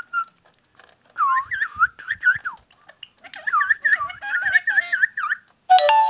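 Ringneck parrot chattering in quick runs of looping, whistled chirps, several a second, with a short break in the middle. Just before the end a loud, steady, ringing tone with several pitches starts suddenly.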